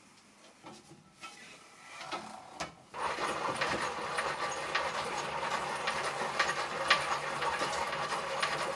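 Homemade aluminium mini lathe driven through a leather belt from a cast-iron Singer treadle base. After a few quiet handling sounds, the spindle and treadle mechanism start running about three seconds in, with a steady rattling hum and a click every half second or so.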